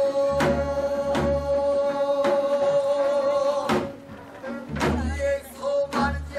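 Korean traditional music from a changgeuk performance: one long steady held note for the first few seconds, over low beats that come in about a second in and again near the end.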